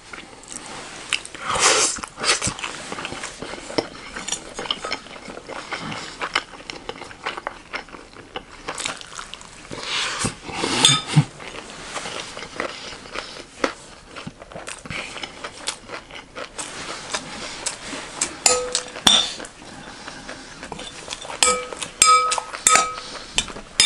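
Close-up eating sounds: chewing and crunching a mouthful of chatpatey, a spiced puffed-rice snack, while a metal spoon scrapes and clinks in a glass bowl. Near the end the spoon strikes the bowl several times, and each clink rings briefly.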